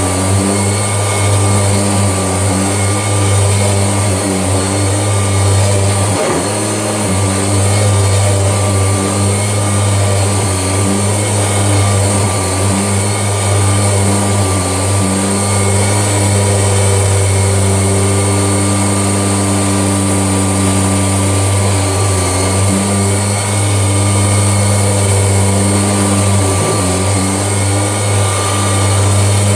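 Kirby Legend II upright vacuum cleaner running steadily on carpet: a loud motor hum with a high whine, drawing flour up out of the carpet pile. The sound dips briefly about six seconds in and again near the end.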